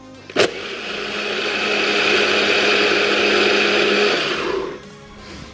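NutriBullet blender running, blending a thin batter of oats, protein powder, water and egg whites. It starts with a click about half a second in, whirs steadily for about four seconds, and stops near the end.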